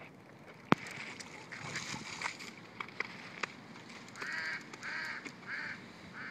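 A sharp click a little under a second in, then rustling and a few smaller clicks; from about four seconds in, waterfowl give four short calls in a row.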